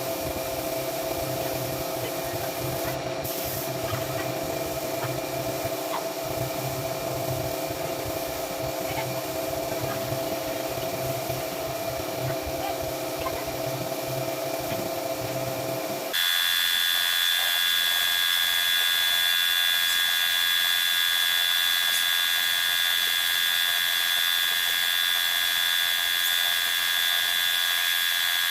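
A power tool's motor running steadily with a whine. About sixteen seconds in the sound changes abruptly to a louder, higher-pitched whine, which runs steadily from then on.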